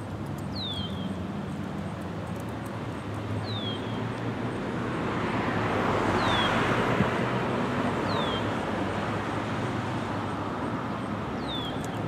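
A vehicle passing, its noise swelling to a peak about halfway through and then fading, while a bird gives a short falling whistle every few seconds.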